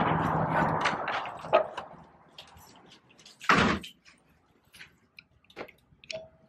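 A door opened by its knob, then shut with one loud thump about three and a half seconds in, followed by faint footsteps and small taps. A steady mechanical hum at the start fades away within the first two seconds.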